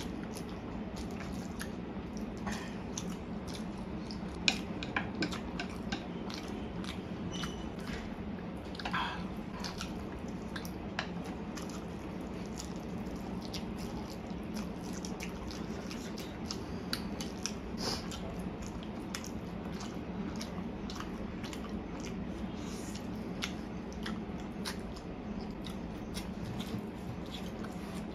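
Close-up chewing and slurping of spicy Korean fire noodles, with many small wet mouth clicks and smacks scattered throughout, over a steady low hum.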